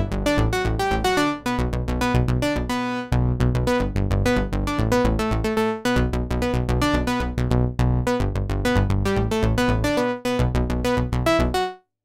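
Sequential OB-6 analog polyphonic synthesizer played dry with the reverb bypassed: a quick run of short notes over a repeating bass note, cutting off suddenly just before the end.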